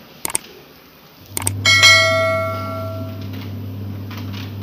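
A bell-like metallic strike about one and a half seconds in, ringing and fading away over about a second and a half, over a steady low hum.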